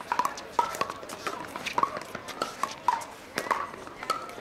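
Pickleball paddles hitting a hollow plastic ball in a fast rally at the net: repeated sharp pocks, about two a second.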